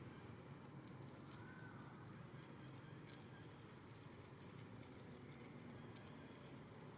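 Near silence: faint outdoor background with scattered small clicks and a thin, high, steady note lasting about two seconds in the middle.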